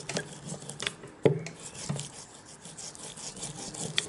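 A plastic hand roller is rolled and pressed over a polytunnel repair-tape patch on thin poncho fabric, with rubbing and crinkling of the fabric and scattered clicks. There is one louder knock about a second in.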